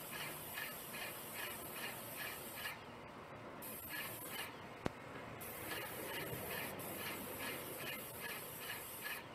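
Airless paint sprayer spraying fence stain: a steady hiss that cuts out briefly twice. Over it runs a rhythmic squeak about three times a second, which fades for a few seconds in the middle. A single sharp click comes about five seconds in.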